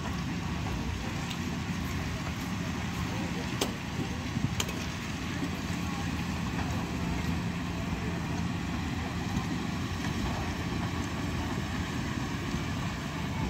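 Diesel engine of a heavy road-building machine running steadily, with two sharp clicks about three and a half and four and a half seconds in.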